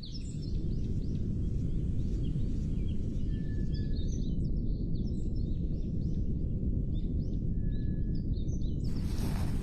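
Low, steady wind rumble on the microphone, with small birds chirping over it and two long thin whistled notes. Near the end, a broad rushing hiss of wind sweeps in.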